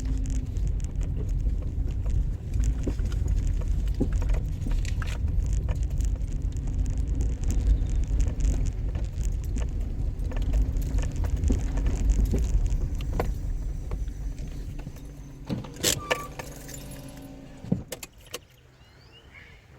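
Car driving, a steady low engine and road rumble heard from inside the cabin, which dies away near the end as the car stops. A few sharp clicks and knocks follow as it stops.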